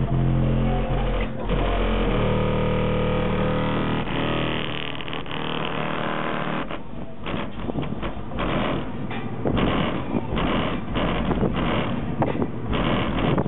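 Bass-heavy music played loud through two 15-inch Kicker L7 subwoofers in an SUV, heard from outside the vehicle. Held bass notes at first, turning about four seconds in to a rough, pulsing noise with a beat of about two hits a second.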